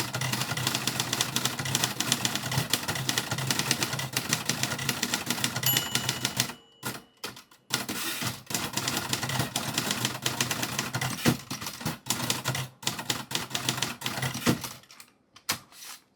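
1950s Royal Quiet Deluxe manual typewriter being typed on fast, with a rapid clatter of typebar strikes. About six seconds in the typewriter's bell dings once and the typing breaks off briefly before resuming, then it thins to a few scattered keystrokes near the end.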